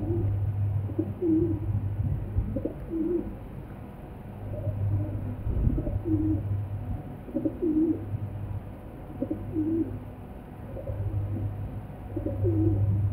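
Feral rock pigeons cooing repeatedly, short rolling coos every second or so, as in a male's bow-coo display. A low hum comes and goes underneath.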